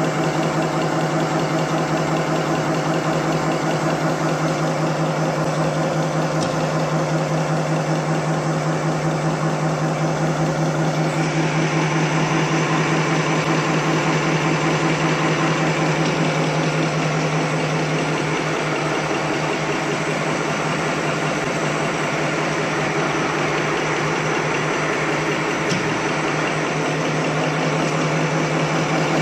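Napkin paper folding machine running steadily: a constant mechanical hum with a fast, even clatter from its folding and stacking mechanism.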